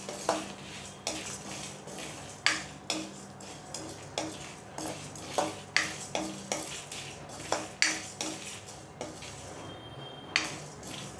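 A spatula scraping and knocking around an aluminium kadai as whole spices are stirred while dry-roasting, the seeds rattling against the metal. Irregular strokes, one or two a second, with no oil sizzle because the pan is dry.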